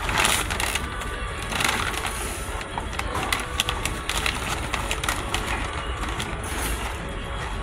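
Sipping a cold drink through a straw from a plastic cup held close to the microphone, with sucking noises and scattered short crackles and clicks.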